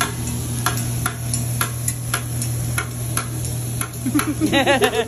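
Metal spatulas clicking against a hibachi steel griddle about twice a second, over a steady low hum. About four seconds in, a voice rises and falls in pitch briefly.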